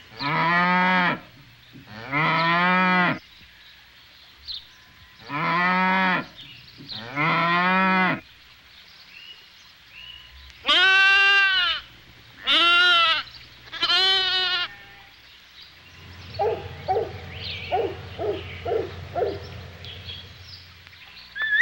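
Farm livestock bleating: four low calls of about a second each, then three higher, shorter bleats, followed by a run of short, quick calls.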